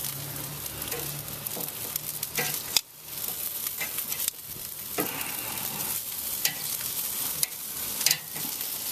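Chicken drumsticks sizzling on a hot charcoal kamado grill grate, with metal tongs clicking against the grate and the meat as the pieces are turned.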